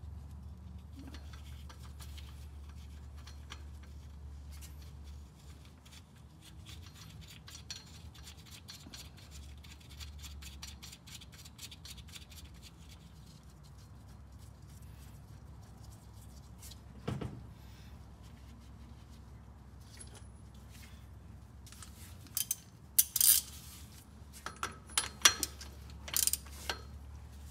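Hand tools and metal parts being handled while working on a car's differential: a long run of rapid light metallic ticks, a dull thump, then several loud sharp metal clinks near the end, over a steady low hum.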